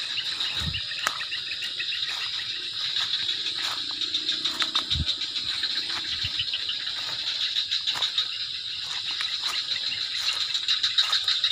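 A dense, steady chorus of crickets and other insects, trilling rapidly and continuously, with a few scattered light clicks and knocks.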